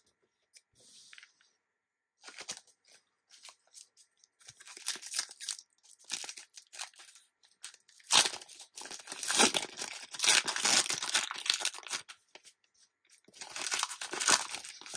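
Trading-card pack wrapper being torn open and crinkled by hand, in irregular bursts of crackling, loudest about halfway through and again near the end.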